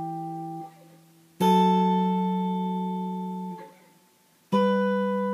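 Guitar plucked with the fingers, no pick, on just the A and B strings: two-note ambient chord voicings played clean, with no effects. Each chord rings and slowly fades before being cut off, with a new one plucked about a second and a half in and again near the end.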